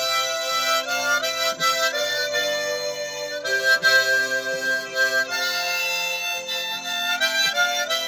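Harmonica playing a slow gospel hymn melody in long held notes that change every second or so.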